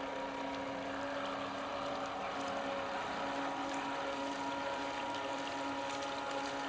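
Radio-controlled model boats running on the water: a steady motor whine made of several held tones, over the wash of the water.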